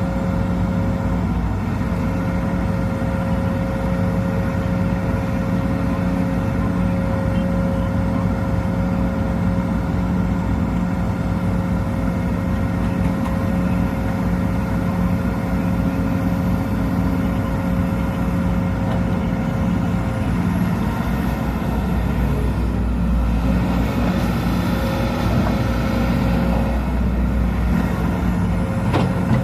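Sumitomo SH210 excavator's diesel engine running steadily while it works, with a steady whine that fades out about two-thirds of the way through.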